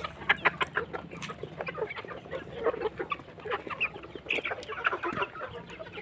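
A flock of laying hens clucking as they feed on scattered grain, with many short calls overlapping.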